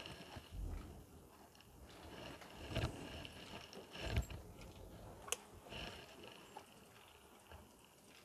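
Faint movement and handling noise: a few soft thumps about three and four seconds in, and one sharp click a little after five seconds.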